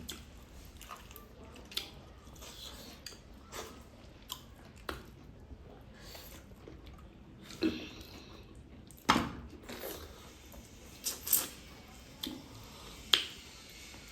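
Chewing and eating sounds, with scattered sharp clicks and knocks, the loudest about nine and thirteen seconds in.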